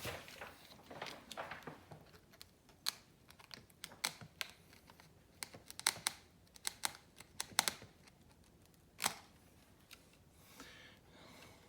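Scattered light clicks and taps at irregular spacing, the sharpest about nine seconds in, from hand tools working grasscloth wallpaper at a seam.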